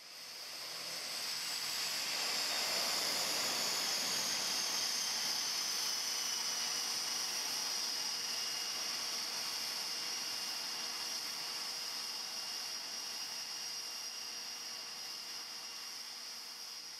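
High turbine whine over a steady hiss, as of an aircraft turbine running on the ramp. Its pitch glides down over the first few seconds and then holds steady. It swells in over about two seconds and slowly fades toward the end.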